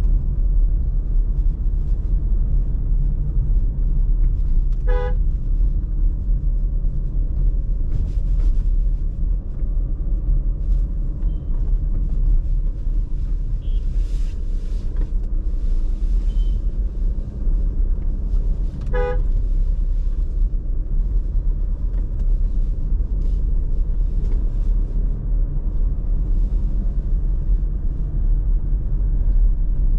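Steady low rumble of a car on the move, with a short car-horn toot about five seconds in and another at about nineteen seconds.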